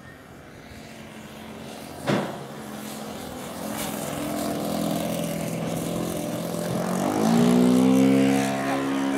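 Enya 120 glow engine of an RC Ultimate biplane running at speed on a low pass. Its note grows louder, rises in pitch as the plane comes near, and is loudest about eight seconds in. There is one sharp knock about two seconds in.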